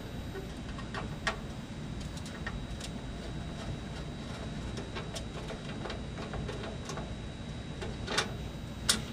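Small scattered metal clicks and ticks of a screwdriver working a screw out of a grill's metal housing, with a couple of sharper clicks near the end.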